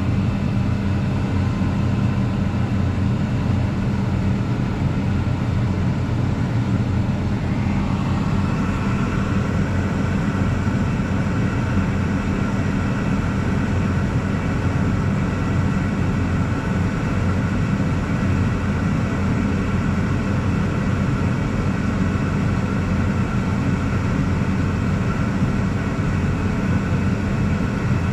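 Tractor engine running steadily under way, a steady drone that steps up slightly in pitch about eight seconds in.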